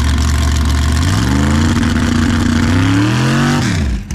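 Car engine revving: it runs low and steady, climbs in pitch about a second in, holds, climbs higher, then drops back sharply near the end.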